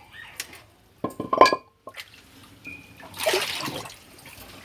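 Floodwater sloshing and splashing, with a few sharp knocks and a ringing clink of objects about a second in and a louder surge of splashing about three seconds in.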